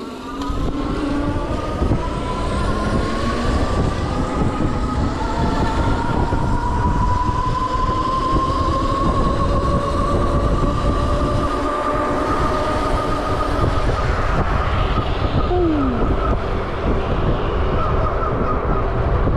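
Electric hub motor whining while riding, its pitch rising slowly for about ten seconds as it gathers speed and then holding steady, over heavy wind rumble on the microphone.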